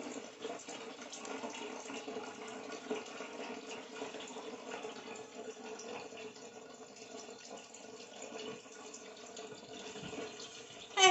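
Water running steadily into a plastic gallon jug as it fills.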